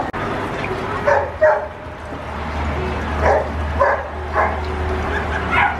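Small dog yipping and whining in short, separate calls, about six of them, over a steady low hum.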